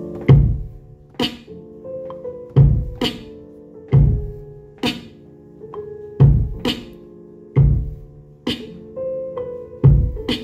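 A hip-hop beat playing back from Maschine: a slowed-down sampled loop of held keyboard chords, with a deep kick drum and a sharp snare hitting in a steady pattern over it.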